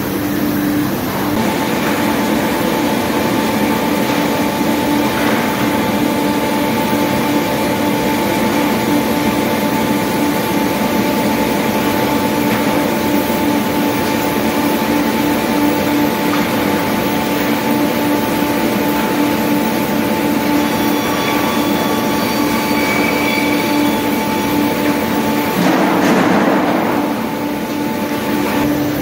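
Sawmill line running: a circular-saw canter's electric motors and the chain and roller conveyors make a loud, steady mechanical hum with a clatter of rolling machinery. Near the end, a louder rush of noise lasts about a second.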